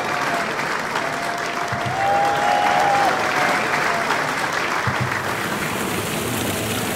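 A small group of people clapping their hands in steady applause.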